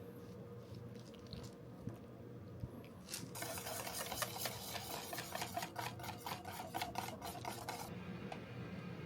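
Cheesecake batter being whisked in a bowl: a fast, rhythmic scraping that starts about three seconds in and stops about five seconds later.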